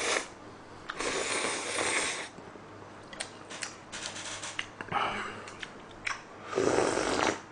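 A person slurping noodles: a long slurp about a second in and another near the end, with chewing and small clicks between them.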